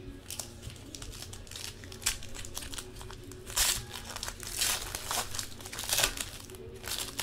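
A trading card pack's wrapper being torn open and crinkled by hand: an irregular run of short crackling rustles, a few of them louder in the second half.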